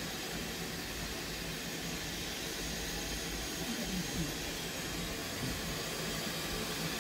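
Steady hiss of steam from GWR Grange class 4-6-0 steam locomotive No. 6880 Betton Grange.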